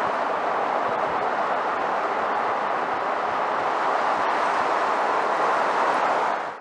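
Steady road noise of a Ford Maverick pickup towing a travel trailer on wet asphalt: an even tyre hiss with no distinct engine note, cutting off abruptly at the very end.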